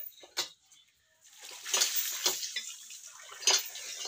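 Running water splashing onto raw chicken pieces in a plastic colander as they are rinsed, starting about a second and a half in, with louder splashes now and then. Two short knocks come just before it.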